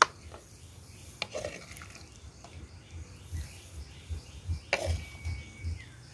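A metal ladle scooping curry and clinking against a heavy black cooking pot and a ceramic serving bowl, with a sharp clink at the start and a few softer knocks after. Insects and a bird chirp faintly in the background.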